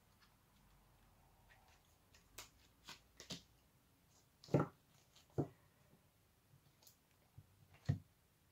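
Faint, scattered clicks and taps of cards being handled and laid down on a table. The loudest comes about four and a half seconds in, with others near the end.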